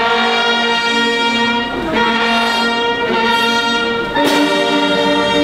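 Brass band playing slow, long-held chords, moving to a new chord about two seconds in and again just after four seconds.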